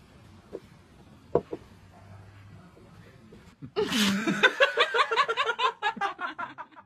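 A few faint knocks, then about four seconds in a person bursts into laughter: a rapid run of ha-ha pulses, falling in pitch, lasting about three seconds.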